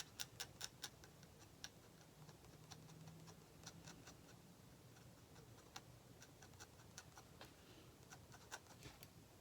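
Faint ticks of an ink pen making short strokes on drawing paper: a quick, even run of about five a second at first, then sparser and irregular.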